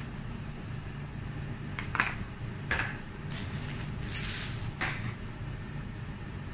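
A few short, light clicks and scrapes as a plastic container and a spoon are handled and set down on a stainless steel counter, over a steady low hum.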